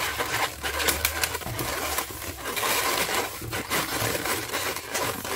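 Hands bending an inflated orange 260 latex modelling balloon into a curl, the latex rubbing under the fingers with many small uneven handling noises.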